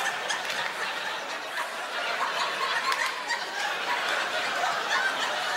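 Audience laughing, a crowd's laughter that keeps going without a break.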